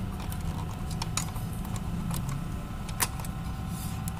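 Small clicks and rattles of plastic and metal parts as the paper-feed roller assembly of a Canon iR 5020/6020 photocopier is pushed back into place by hand, with one sharper click about three seconds in, over a steady low hum.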